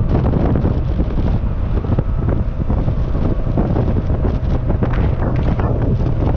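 Wind buffeting the microphone in an open-top 1972 Porsche 914-6 cruising at steady speed, over the drone of its 2.7-litre twin-plug air-cooled flat-six engine.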